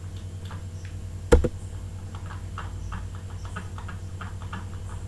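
Computer mouse and keyboard clicks: one sharp, loud knock about a second and a half in, then a quick string of fainter clicks, over a steady low electrical hum.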